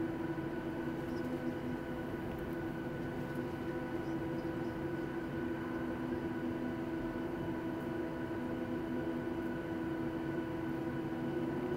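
Steady cabin hum of a Boeing 737-700's CFM56-7B jet engines at idle while the airliner taxis: a few fixed whining tones over a low rumble, with no change in pitch.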